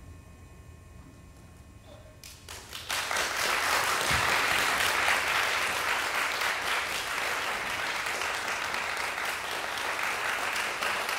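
Audience applauding: a quiet pause, then a few scattered claps about two and a half seconds in that swell into steady applause.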